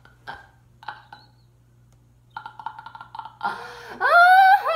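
A girl's loud, high-pitched scream of frustration, starting about four seconds in, rising and then held for over a second. Before it come a few faint knocks of cardboard being handled and a short strained groan.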